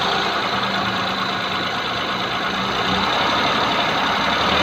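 Maruti Suzuki 800's three-cylinder petrol engine running steadily near idle, given a light touch of throttle. With the AC compressor belt off, the whirring noise the customer complained of is absent; the fault is traced to play in the AC compressor bearing.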